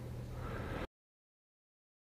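Motorcycle engine, a Honda NC700X's parallel twin, idling steadily; under a second in the sound cuts off instantly to dead digital silence, a break in the recording rather than the engine stopping.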